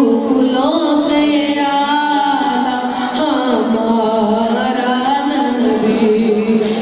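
A boy singing a naat, an Urdu devotional poem, solo into a microphone: a slow melody of long held notes that bend up and down in pitch.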